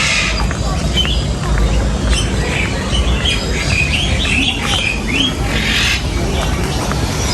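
Many birds calling: a busy mix of short chirps with a few harsh calls, one near the start and another about six seconds in, over a steady low rumble.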